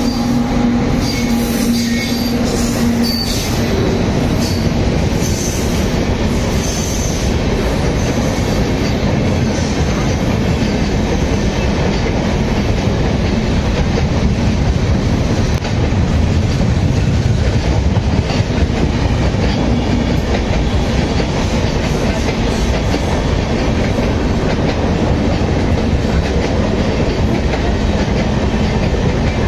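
Indian Railways express train running through a station at speed. The electric locomotive passes with a steady low hum in the first few seconds, then a long rake of passenger coaches rushes past with a continuous loud wheel roar and clickety-clack over the rail joints.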